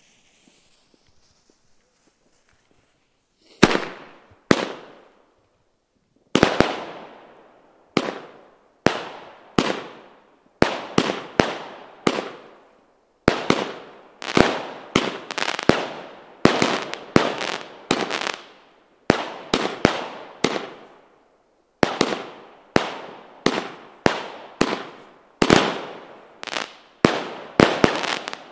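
VC 'Supreme Meteor Rain' firework cake firing: after about three seconds of quiet, dozens of shots go off one to two a second. Each is a sharp bang that fades out over half a second or so.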